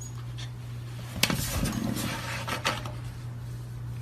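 A short run of sharp knocks and clinks of hard objects about a second in, over a steady low hum.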